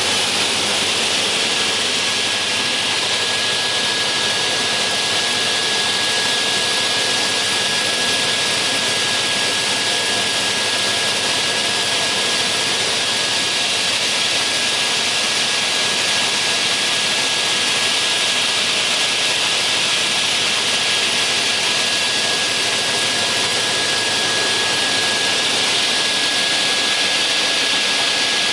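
Raimann K-23D chain-feed multi-rip saw running steadily: a dense, even hiss with a thin steady whine held throughout.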